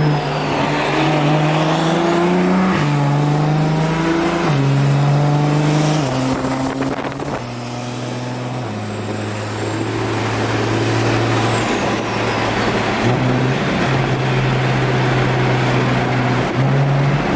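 A single-turbo N54 inline-six BMW 335is driving, its engine and exhaust note holding at one pitch for a few seconds at a time and stepping up and down as the revs change. A faint high whine rises about two seconds in and fades away near the end.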